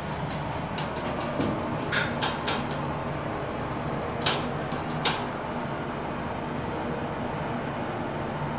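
Steady hum inside a Dover hydraulic elevator car during its one-floor ride up. A run of light clicks and knocks in the first few seconds, then two sharper knocks around four and five seconds in.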